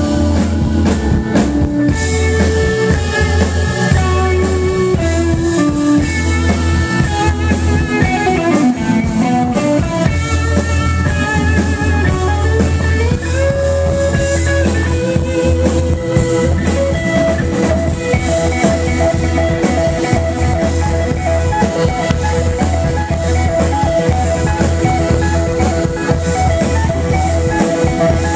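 A live band playing an instrumental number through the stage PA: electric guitar and keyboard over drums, with a strong steady bass and a melodic line moving up and down through the notes.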